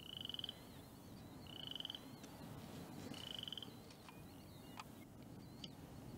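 Chorus frogs calling: three short pulsed trills, about a second and a half apart, over a faint hush, with a couple of faint clicks near the end.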